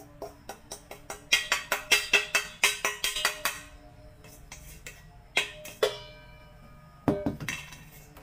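Stainless steel bowl being knocked to empty out powdered sugar: a fast run of sharp metallic knocks, about six a second, with a ringing tone after them, then a pair of ringing knocks and a short final flurry.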